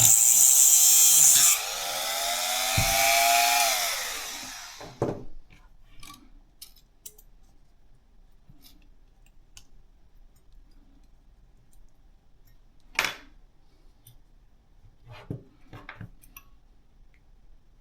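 An electric power tool runs with its pitch rising and falling as the load changes, then winds down and stops about four and a half seconds in. After that come faint clicks and handling knocks, the sharpest about 13 seconds in.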